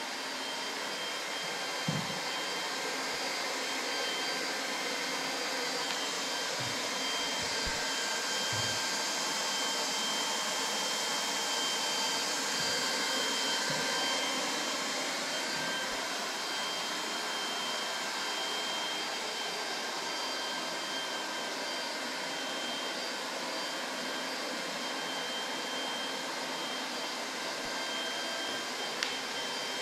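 Hot-air plastic welding gun for PVC pool liner running steadily: a blower's rushing hiss with a thin high whine, and a few soft knocks.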